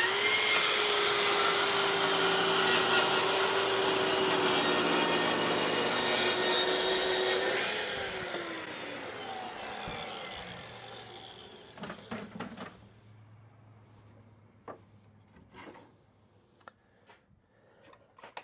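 Track saw spinning up and cutting through a wood panel, a steady loud run of about seven and a half seconds, then the blade winding down with a falling whine over a few seconds. A few light knocks follow near the end.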